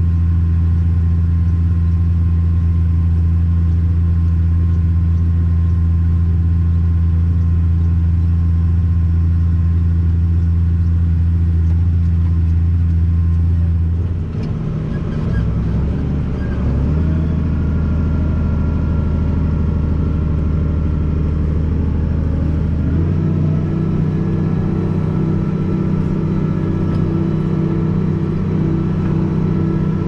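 Diesel tractor engine running steadily under load, heard from inside the cab. Its note changes about halfway through and again a few seconds later.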